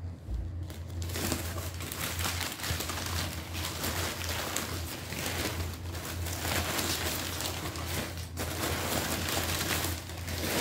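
Paper packing rustling and crinkling as hands dig through a cardboard shipping box and pull out a smaller box, with a steady low hum underneath.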